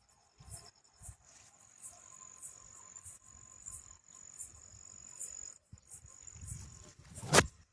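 Insects chirping: a steady high-pitched trill with short, higher chirps repeating about twice a second. A single sharp, loud click comes near the end, amid a low rumble.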